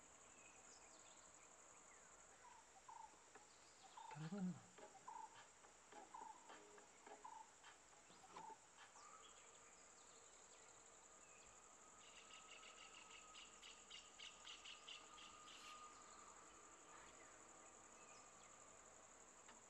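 Steady high-pitched insect drone with scattered chirping calls: a run of short chirps in the first half, one brief low falling sound about four seconds in, and a rapid rhythmic pulsing chirp from about twelve to sixteen seconds.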